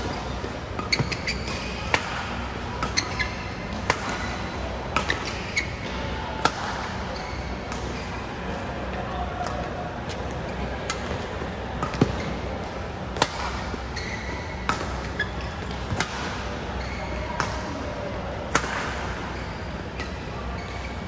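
Badminton rally: rackets strike the shuttlecock in sharp smacks, one every second or two, with court shoes squeaking briefly on the synthetic court mat between shots.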